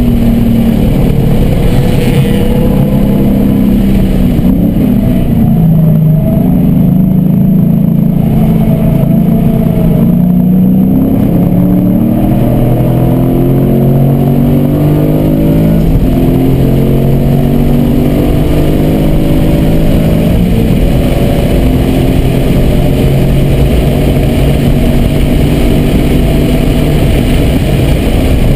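Car engine heard from inside the cabin under track driving. It falls in pitch as the car brakes and downshifts, then climbs in pitch again and again through the upshifts under full throttle, over steady wind and tyre noise.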